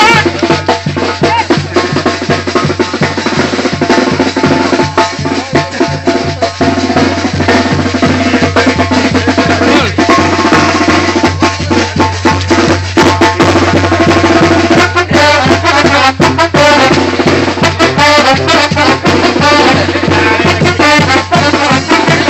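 Mexican brass band playing loudly on the march: sousaphone, trumpets and drums keeping a steady beat.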